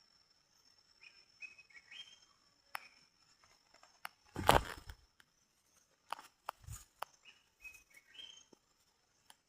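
A bird calling twice, each time a short phrase of quick notes stepping upward. About halfway there is a loud, brief rustling thump, followed by a few sharp clicks, all over a steady thin high tone.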